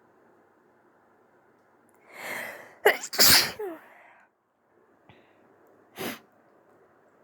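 A person sneezing: a breathy intake about two seconds in, then one sharp, loud sneeze that trails off over about a second. A short, quieter burst follows about three seconds later.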